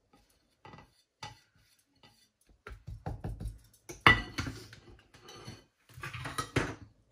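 Kitchen clatter: a plate being tipped, tapped and set down on the countertop among small items, with a sharp knock about four seconds in.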